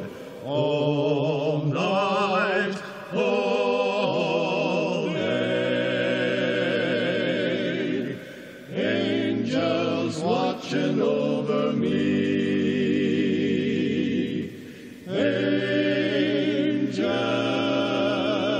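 Men's quartet singing a cappella in four-part harmony: long held chords with vibrato, with brief breaks for breath every few seconds.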